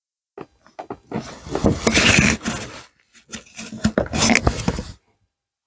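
Rustling and scraping handling noise in two stretches, with a few clicks just before.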